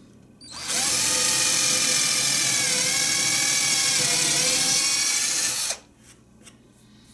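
Electric drill boring a dowel hole into a wooden slat. The motor spins up about half a second in and runs for about five seconds with a high whine, dipping in pitch around the middle as the bit bites into the wood, then recovers before it cuts off sharply.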